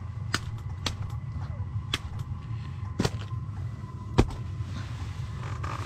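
Steady low rumble with about five sharp clicks or knocks scattered through it, the loudest about four seconds in.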